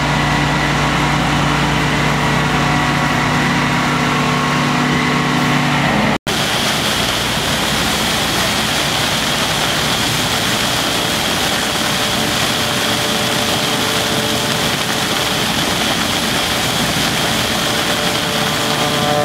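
A machine engine running steadily with an even hum; after a cut about six seconds in, a steady rushing hiss of snow being blown out through a large flexible hose.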